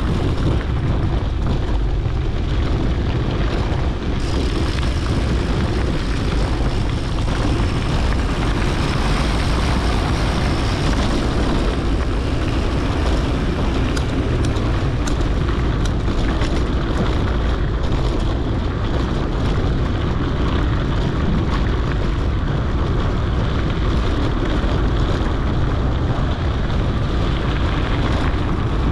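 Mountain bike rolling over a dirt and rock trail, recorded on a GoPro: steady wind rumble on the microphone mixed with tyre and frame noise, with a few sharp clicks about halfway through.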